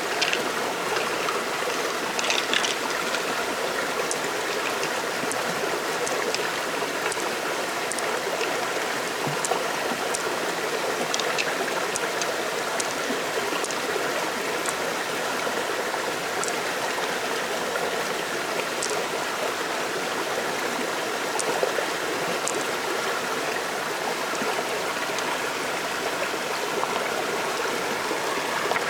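Stream water running steadily, with scattered small clicks over it.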